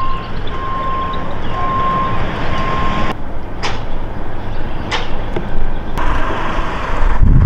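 Marine travel lift running while it carries a sailboat in its slings, with a steady electronic warning beep that repeats and stops about three seconds in; steady mechanical noise continues after the beep stops.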